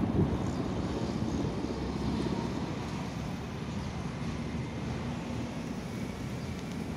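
Steady low outdoor rumble, a little louder at the very start and easing slightly after.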